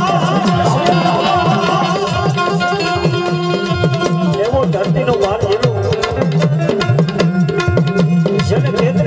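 Live Gujarati dakla folk music: a harmonium sustaining steady chords while hand drums beat a continuous rhythm, with a voice singing over them.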